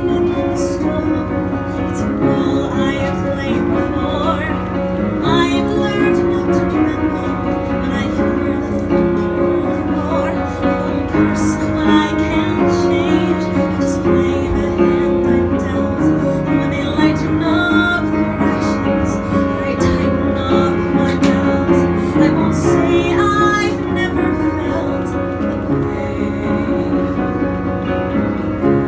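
A woman singing a slow musical-theatre ballad into a microphone, accompanied by piano chords.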